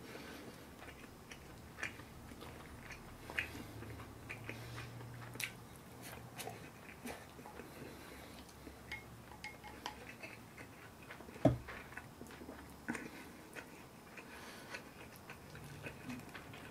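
Quiet eating: chewing, with small scattered clicks of wooden chopsticks against a ceramic rice bowl and plates. One louder knock about eleven seconds in.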